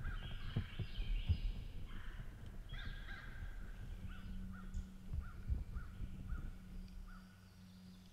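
A series of short bird calls, repeated about two or three times a second, over footsteps and rustling in dry leaf litter that stop about seven seconds in.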